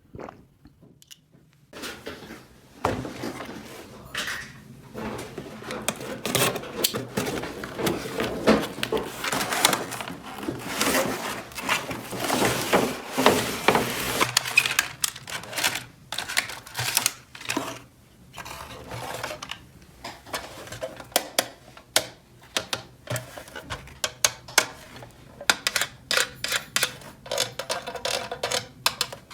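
Small plastic toy kitchen pieces being handled and set down: a dense, irregular run of light clicks, taps and clatter that starts about two seconds in.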